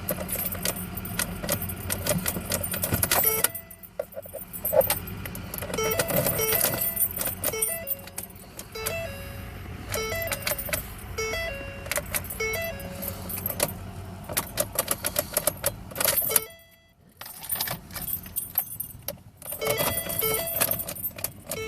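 Keys jangling and clicking at a 2009 Ford Focus that won't start, with a two-note electronic chime repeating over and over; no engine catches.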